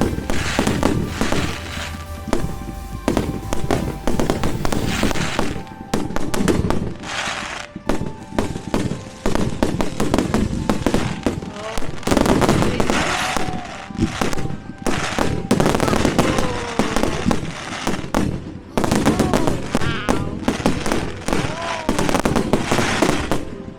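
Firework display: a rapid, continuous run of bangs and crackles, with music playing under it.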